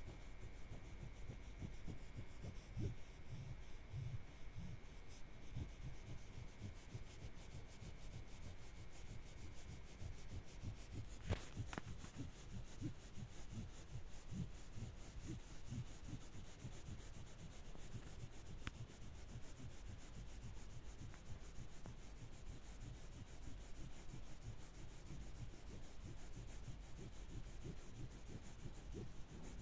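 Faint hand rubbing on a metal wrench during rust cleaning, many short irregular strokes. A single sharp click comes a little before the middle.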